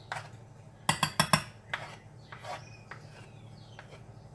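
Metal spoon clinking and scraping against kitchen utensils as cupcake batter is cleared off them: a quick run of about four sharp clinks about a second in, then softer scrapes and taps.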